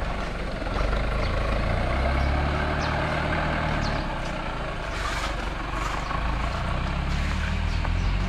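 Heavy vehicle engine running steadily, a low hum, with a few faint knocks.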